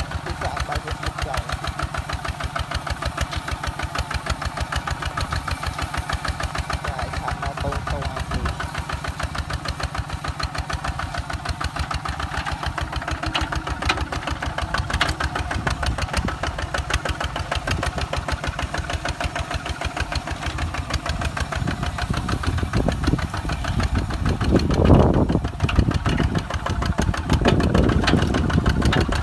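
Kubota ZT 155 DI walking tractor's single-cylinder diesel running steadily under load as it pulls a disc plough through dry soil, a rapid even chug of firing pulses. It gets louder over the last several seconds.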